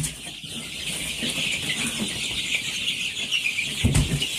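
A crowd of baby chicks peeping continuously, many high chirps overlapping, with one dull thump near the end.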